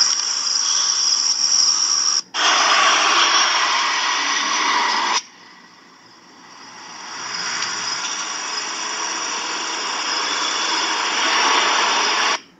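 Crickets chirping under a loud, steady rushing hiss. The hiss cuts out sharply for an instant about two seconds in, drops away suddenly about five seconds in, swells back up over the next two seconds, and stops abruptly near the end.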